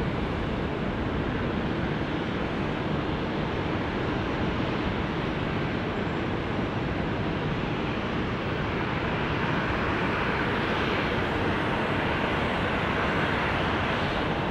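Distant jet engine noise from a landing China Airlines Airbus A350, a steady rush over wind noise on the microphone, growing louder in the second half.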